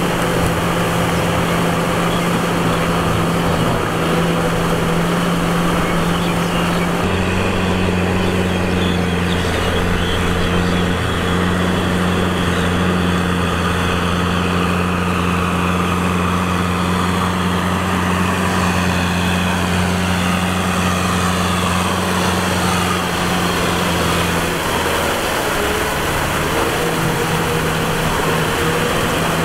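Diesel farm tractor engine running steadily under load while it pulls a rotavator through flooded paddy mud. The engine note shifts about seven seconds in and again near the end.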